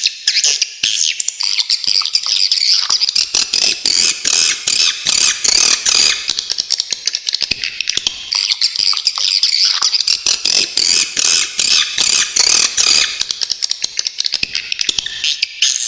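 Swiftlet calls: a dense, unbroken stream of rapid, sharp, high-pitched chirps and chattering trills, swelling and easing in waves.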